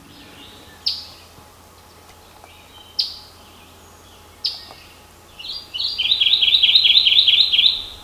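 Kentucky warbler song: a loud, fast run of repeated two-part phrases lasting a little over two seconds, starting just past halfway. Three sharp single notes come before it, spaced a second or two apart.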